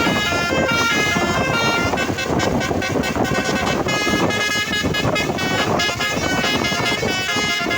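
Telolet (basuri) multi-trumpet bus horn playing a quick tune that steps from note to note, over steady noise.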